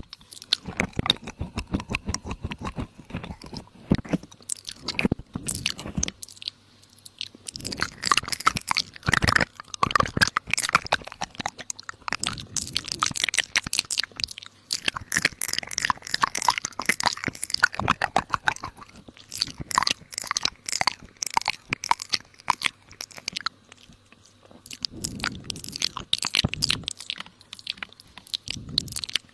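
Close-up crunching and chewing of crisp food, a dense run of crackly bites and chews with a few short pauses.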